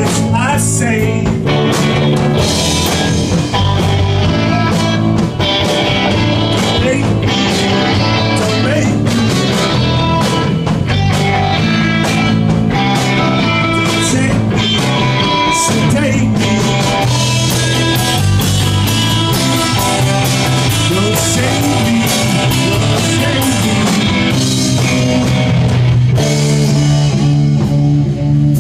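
Live rock band playing a loud, steady song on electric guitar, electric bass and drum kit.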